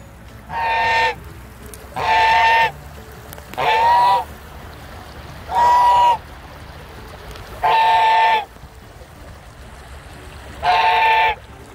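White domestic goose honking repeatedly: six long, level-pitched honks, each just under a second, about every two seconds.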